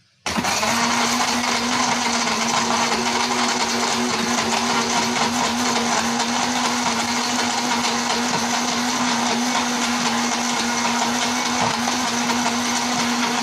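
Electric countertop blender switching on at speed setting 3 and running steadily with a constant hum, blending ice cubes and liquid in its jar.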